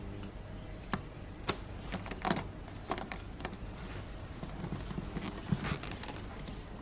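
Light metal clicks and clinks of a bag's zipper pulls and D-ring hardware being handled, about a dozen irregular taps, the loudest about two seconds in.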